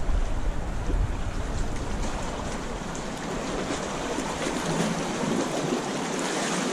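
Sea water washing and swirling against shore rocks, with wind rumbling on the microphone that is strongest in the first couple of seconds and then eases.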